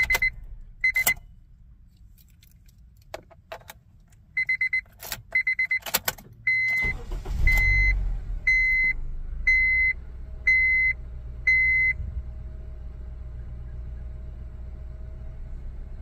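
2007 Honda Civic's four-cylinder engine being restarted: key clicks, then about seven seconds in the engine starts and settles into a steady idle. A short electronic beep repeats about once a second for several seconds around the start.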